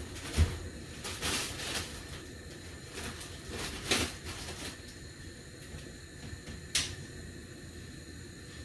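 Kitchen handling noises: a low knock just after the start, then rustling and a few short, sharp clicks.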